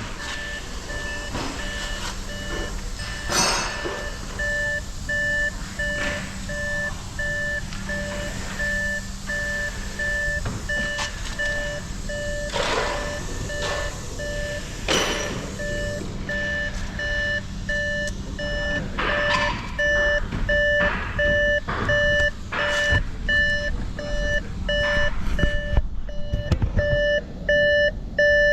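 Vehicle reversing alarm beeping steadily, about two beeps a second, over the low rumble of a running engine, with a few scattered metallic clanks.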